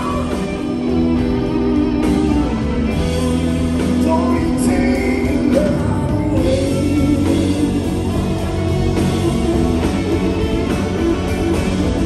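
A live blues-rock band playing, with electric guitars over bass and drums, heard from the seats of a theatre hall.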